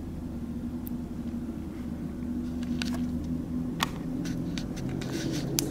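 Steady low room hum with scattered sharp clicks, which come thicker in the last two seconds, and one louder click about four seconds in.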